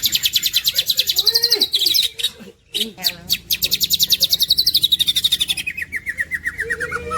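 Greater green leafbird (cucak ijo) singing: long, rapid trills of high repeated notes, the second trill sliding down in pitch, with a short break about two and a half seconds in.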